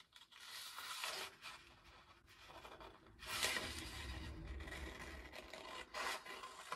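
Scissors cutting through a paper pattern sheet, with the paper rustling as it is handled. The sound comes in soft bursts and grows fuller from about three seconds in.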